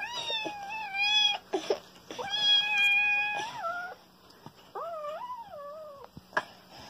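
A kitten meowing: three long, drawn-out meows, the last one wavering up and down in pitch.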